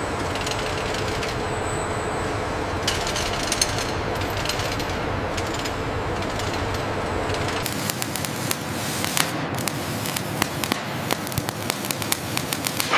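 Steady noisy industrial hum with a faint held tone. About eight seconds in, it gives way to the irregular crackle and sharp pops of welding throwing sparks.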